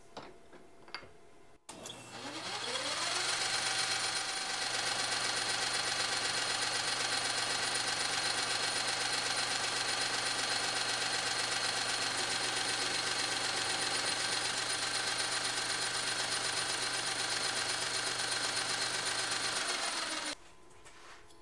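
A few light clicks, then a metal lathe starts up, its motor and gearing rising to speed over about two seconds. It runs steadily while a steel shaft is turned, and stops abruptly near the end.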